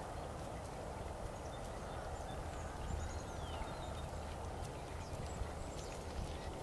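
Soft hoofbeats of a ridden horse trotting on grass, over a steady low rumble of wind on the microphone. A few bird chirps come about three seconds in.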